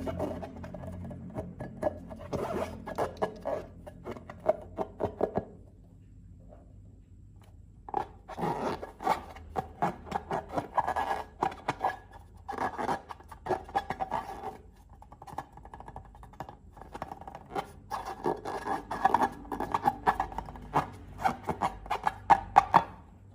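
Crackly scraping and rubbing in repeated bursts, with a pause of about two seconds near the quarter mark: close-up handling sounds of slime being worked with balloons.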